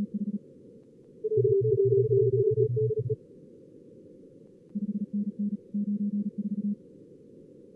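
Simulated fast CW Morse code at about 45 words per minute, generated by contest-logger practice software, over steady narrow-band receiver hiss. A louder, lower-pitched run of Morse from about one and a half to three seconds has several higher-pitched stations calling over it at once, and another run of Morse comes near the end.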